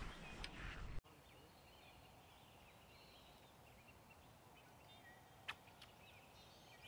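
Near silence: faint outdoor background with distant bird calls and a single sharp click about five and a half seconds in. A louder noise in the first second cuts off abruptly.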